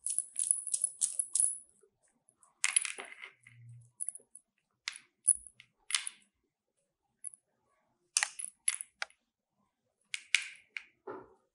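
Bangles clinking on a wrist as hands shape and roll dough balls: scattered light clinks in short clusters, with gaps between them.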